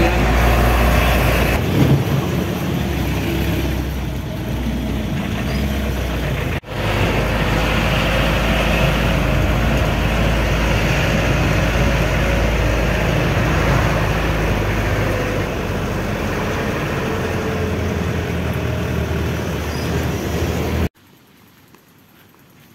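Engine and road noise of a shuttle van heard from inside its cabin, steady with a low engine hum, broken once by a brief gap about seven seconds in. About twenty-one seconds in it cuts off to a faint, quiet outdoor background.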